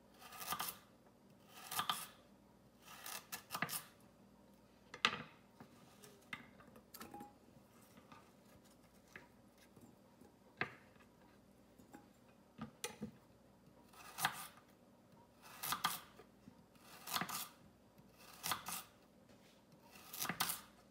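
Chef's knife slicing a raw carrot into thin rounds on a wooden cutting board: a short crisp cut ending in a knock on the board, repeated about every one to two seconds, with a quieter stretch midway.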